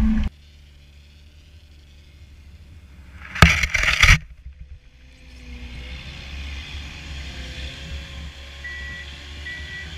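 PistenBully 400 Winch snowcat: a loud engine rumble cuts off suddenly at the start, then a brief loud rush as snow sprays over the camera about three and a half seconds in. In the second half the snowcat's engine and tracks run steadily, with two short faint beeps near the end.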